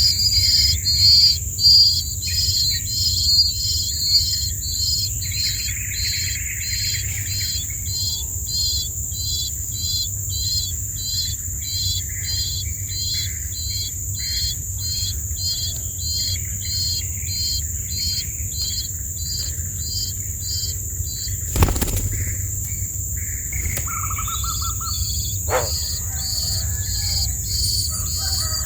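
Birds chirping outdoors: a high, thin chirp repeats about twice a second over a steady high insect drone. A single sharp knock comes a little past the middle, and a few lower chirps follow near the end.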